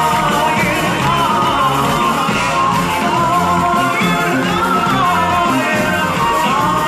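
Live band playing, with a sung melody over drums, electric guitar and keyboard and a steady beat.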